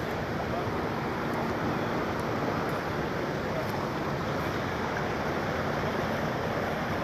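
Steady outdoor rushing noise, even throughout, with a faint low hum underneath.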